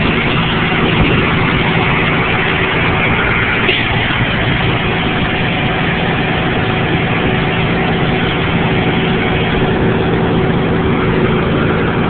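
Heavy rotator tow truck's diesel engine running steadily close by, a constant low rumble with a faint steady hum over it.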